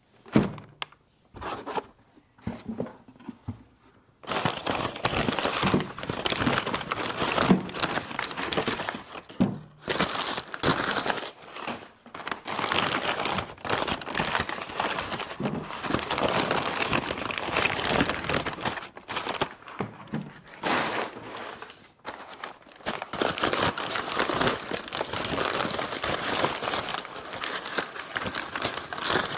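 Packaging crinkling and tearing as new motor mounts are unwrapped by hand. It is continuous from about four seconds in, after a few brief knocks at the start.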